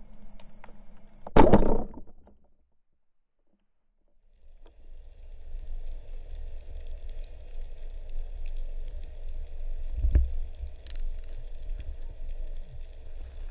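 Speargun fired underwater: a single sudden, loud thunk about a second and a half in, cut off into silence. After the cut, a steady low rush of water with one sharp knock near the end.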